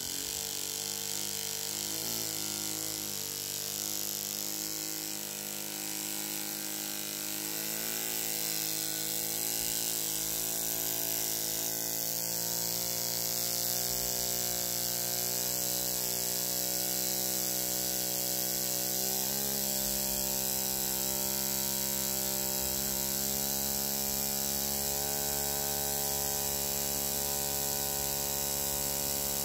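Gasparin G24 CO2 model engine running and spinning a small plastic propeller, making a steady high buzz. Its pitch wavers for the first several seconds, then settles and holds steady.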